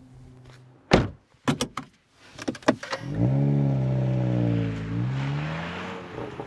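A car door shuts about a second in, followed by a few clicks. About three seconds in, the 2023 Honda Civic Si's 1.5-litre turbocharged four-cylinder starts, its revs flaring up, then settling slowly as it fades.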